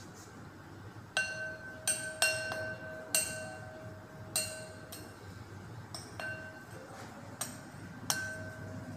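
Metal spoon clinking against a glass mixing bowl while stirring a chopped-nut filling. About eight clinks come at uneven intervals, and the bowl rings briefly after each one.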